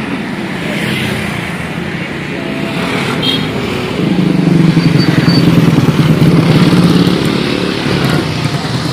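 Motorbike engines passing by on a road, then from about four seconds in a louder, closer engine running with a low, fast-pulsing rumble, easing off a little near the end.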